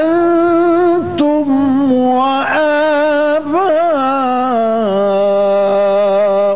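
A man's voice reciting the Quran in the melodic, drawn-out mujawwad style. He holds long notes with wavering ornamental turns, and the pitch steps down to a lower sustained note in the second half.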